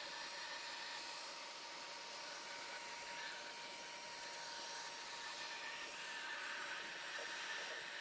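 Vacuum cleaner running steadily with a faint steady whine, its crevice nozzle sucking up dirt and debris from a car's bare metal floor.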